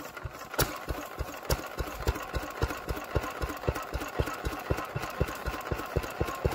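Single-cylinder stationary engine running just after being hand-started on its flywheel, with a slow, even beat of about three firing strokes a second that picks up to nearly four a second.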